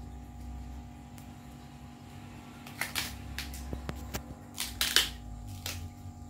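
Terubuk (Saccharum edule) stalk being peeled by hand: its leaf sheaths tear and snap in a run of short, crisp crackles starting about three seconds in, the sharpest about five seconds in, over a steady low hum.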